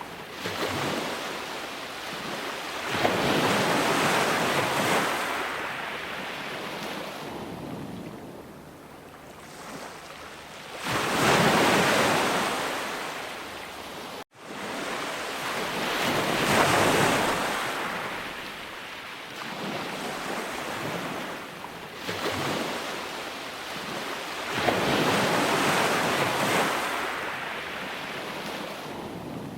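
Ocean waves breaking and washing in, rising and falling in long swells every several seconds. The sound cuts out for an instant about halfway through.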